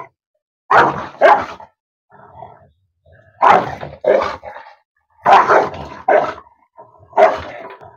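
A guarded, aggressive dog barking from inside its kennel at a man reaching in to free its snagged chain: about seven loud barks, mostly in quick pairs a couple of seconds apart.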